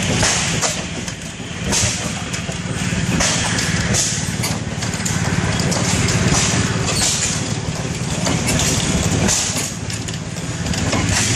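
Large antique stationary gas engine with twin spoked flywheels, fuelled from a propane tank, running steadily with a dense low chugging throughout.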